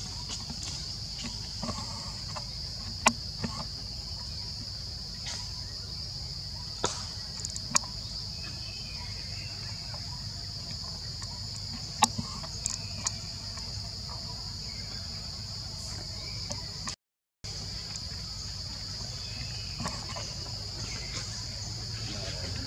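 Steady high-pitched drone of forest insects over a low rumble, broken by a few sharp clicks or snaps, the loudest about three and twelve seconds in. The sound cuts out completely for about half a second near the end.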